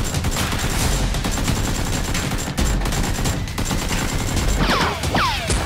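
Rapid automatic gunfire sound effects laid over a blaster fight, with two whining ricochets falling in pitch near the end.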